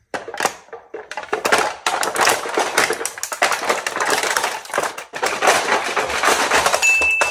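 Thin plastic cups crackling and crunching under a wooden board as a person steps up onto it and puts their weight on them: a dense run of sharp crackles with short lulls. A brief steady high tone comes in near the end.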